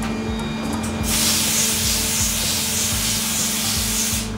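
Loud spraying hiss inside an Okuma MU-400V II five-axis machining center, starting about a second after its start button is pressed and cutting off near the end, with a faint pulse a little under twice a second. A steady machine hum runs underneath.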